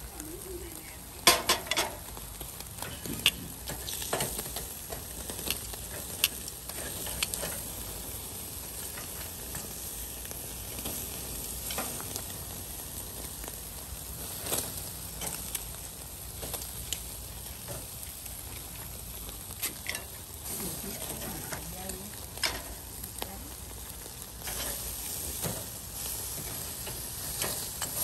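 Meat sizzling on a charcoal grill: a steady sizzle with scattered sharp pops and crackles as fat burns on the hot coals.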